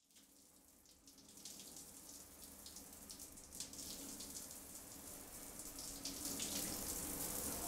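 Faint hiss of water with a light crackling patter, growing steadily louder, over a low hum.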